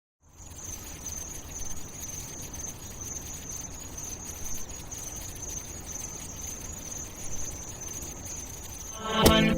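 Low, steady background noise with a constant high-pitched whine. Loud music cuts in about nine seconds in.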